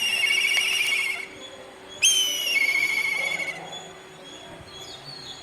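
Kite calling twice: each call a high whistled note that drops into a wavering, quavering trill, the second call about two seconds in.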